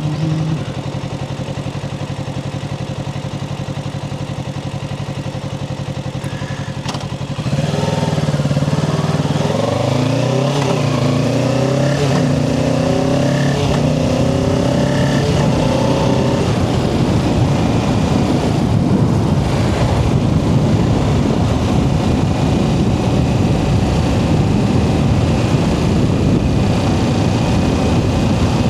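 Kawasaki Ninja 650's parallel-twin engine idling steadily, then pulling away about seven seconds in and accelerating through the gears, its pitch rising in several climbs. It then settles into cruising, where the engine is buried under a steady rushing noise.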